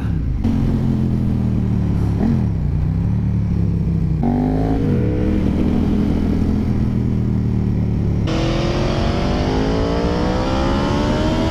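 KTM 1290 Super Duke R's V-twin engine running at road speed through bends, its pitch dipping and rising as the throttle is rolled off and back on, under wind rush on the helmet microphone. About eight seconds in the sound changes abruptly to an Aprilia Tuono V4's engine accelerating, its pitch climbing steadily.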